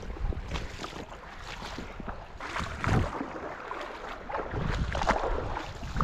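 Shallow stream water sloshing and splashing close by, in irregular swells, with wind rumbling on the microphone.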